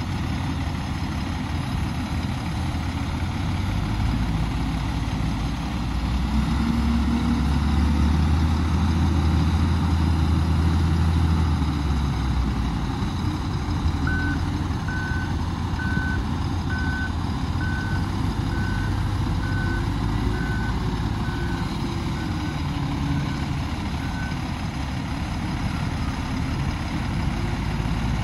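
Komatsu WA470 wheel loader's diesel engine revving hard for several seconds, then settling. The loader's reversing alarm then beeps about a dozen times, roughly once a second, over a heavy diesel engine running.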